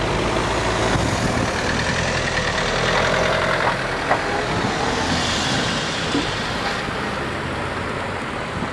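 Cars driving over a level crossing one after another, engines running and tyres rolling past close by, with a couple of short knocks about four seconds in.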